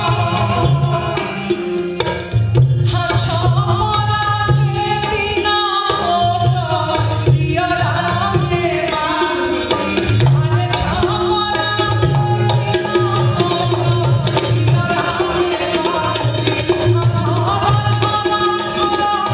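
A woman singing a folk song live into a microphone, accompanied by a hand drum keeping a steady rhythm.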